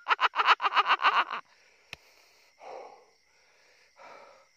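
A man's excited voice in a fast run of short, rhythmic shouted syllables, about seven a second, breaking off after about a second and a half. A single click follows, then a few heavy breaths.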